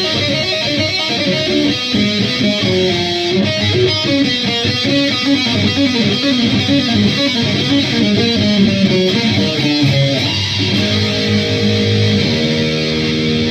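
Electric guitar played through a Boss Metal Zone MT-2 distortion pedal into an Orange Super Crush 100 amp: heavily distorted, quickly changing notes, then held notes for the last few seconds.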